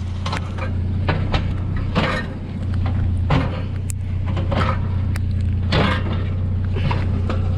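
Pickup truck engine running steadily, with irregular sharp clanks and knocks of scrap metal being handled.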